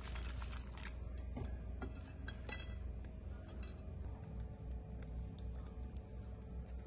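Crispy fried shallots dropping onto a plate of rice and fried egg-tofu slices, a handful of light crackly ticks in the first couple of seconds, then quieter as thick sambal is poured over it, over a steady low hum.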